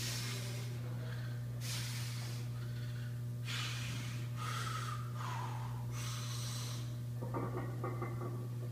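A weightlifter taking sharp, forceful breaths through the nose and mouth, about four of them 1.5 to 2 seconds apart, as he braces under a heavy barbell before squatting. A strained voiced breath follows near the end as he starts down, over a steady low hum.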